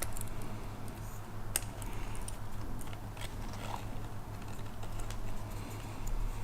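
Light metallic clicks and scratches of a piston's oil scraper ring being worked off the piston by hand, with one sharper tick about a second and a half in. A low steady hum runs underneath.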